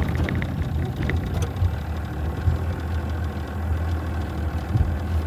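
Boat engine idling steadily with a low, even hum.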